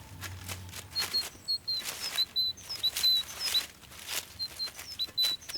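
Dry leaves rustling and crackling in irregular bursts as a hedgehog gathers foliage for its nest, with a small bird chirping short high notes over and over in the background.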